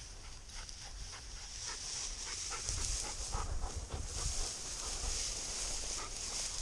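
Hunting dog panting in quick, rhythmic breaths.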